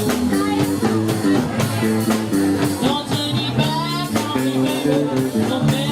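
Live rock band playing a blues-rock cover: bass line, drum kit and electric guitar, with a bending lead line near the middle.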